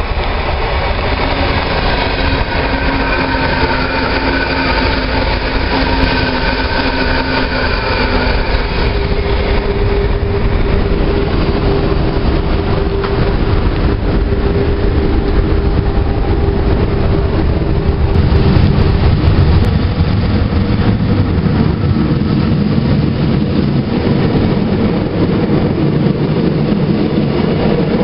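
Renfe Civia electric commuter train running in alongside the platform. The steady whine of its traction motors shifts pitch about nine seconds in, and a heavier low rumble of wheels on rail builds in the second half as the cars pass close by.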